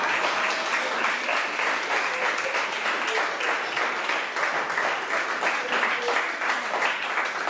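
An audience applauding: many hands clapping steadily and densely.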